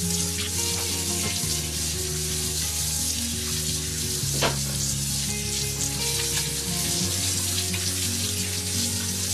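Kitchen tap running onto fish fillets as they are rinsed by hand in a stainless steel sink: a steady hiss of water, with one brief clack about halfway through. Background music with low notes plays underneath.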